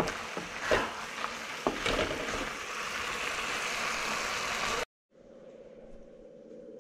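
Carrot halwa sizzling in a wok as a spatula stirs and scrapes it, with a few sharp scrapes and knocks against the pan. It cuts off suddenly about five seconds in, leaving a faint steady hum.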